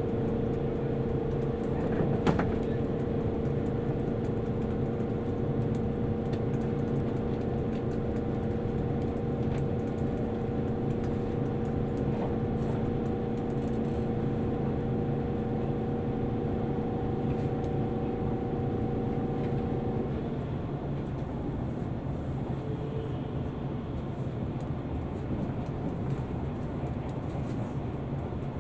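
Electric train running at steady speed, heard from inside the carriage: a continuous rumble of wheels on track with a steady hum of several tones over it. The hum stops about twenty seconds in and the rumble goes on a little quieter. There is a brief click about two seconds in.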